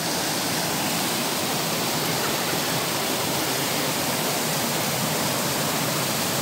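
Mountain stream rushing over boulders and small rapids: a steady, even noise of running water.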